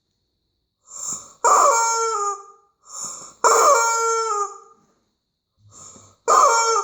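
Yellow hard-rubber squeaky rooster dog toy squeezed three times. Each squeeze gives a loud, shrill, honking squawk that sags in pitch at the end, preceded by a short softer wheeze of air.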